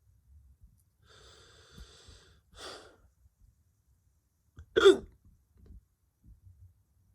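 A man hiccups once, sharply, about five seconds in: a short voiced 'hic' that falls in pitch.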